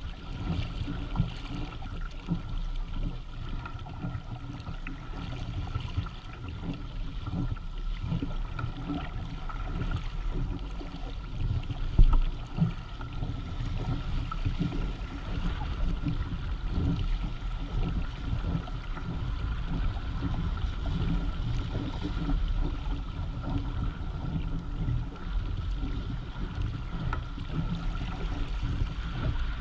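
Water rushing and gurgling along the hulls of a Hobie Tandem Island sailing kayak under sail, with wind buffeting the microphone. A faint steady high tone sits underneath, and there is a louder thump about twelve seconds in.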